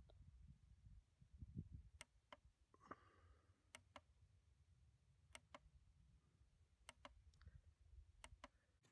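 Faint button clicks from a ProChrono Digital chronograph being stepped through its recorded shot velocities: about five pairs of short clicks, a pair every second and a half or so, over a faint low rumble.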